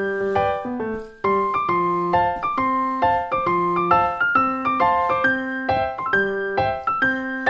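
Piano music: a melody of single notes over a lower line, played at an even, moderate pace, with a brief gap about a second in.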